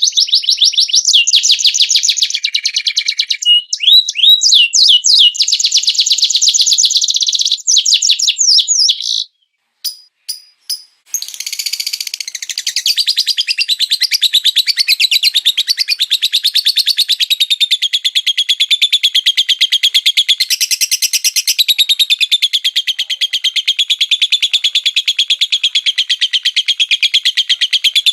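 Songbirds singing: fast, high chirps and sweeping notes for several seconds, a short break with a few clicks, then a continuous rapid trilling chatter.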